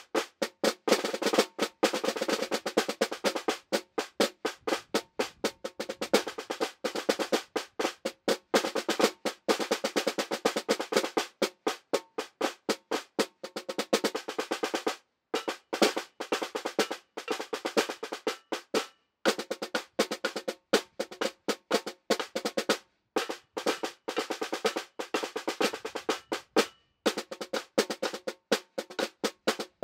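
Two snare drums played with sticks as a duet: fast, dense rhythmic strokes with a few short breaks along the way.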